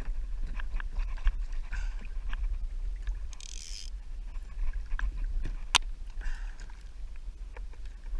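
Water sloshing against a plastic sit-on-top kayak's hull, with scattered knocks and taps of gear on the hull over a steady low rumble. There is a brief hissing splash about three and a half seconds in and a single sharp click near six seconds.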